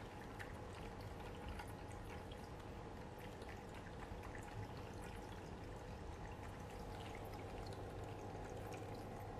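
Faint trickle of water from an electric pet drinking fountain, with a cat lapping from it.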